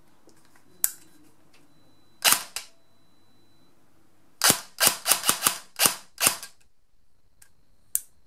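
Classic Army G3 airsoft electric gearbox dry-firing on the bench under a newly fitted Kestrel V2 electronic trigger, each trigger pull a short, sharp single cycle. One shot comes about two seconds in, then a quick run of seven single shots over about two seconds, with a sharp click before the first shot and another near the end. The gearbox answers the trigger every time, a sign the new trigger unit is working.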